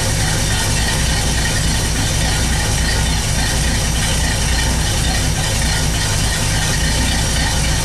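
Pontiac 389 V8 with a four-barrel carburettor idling steadily on its own, early in its warm-up after a cold start.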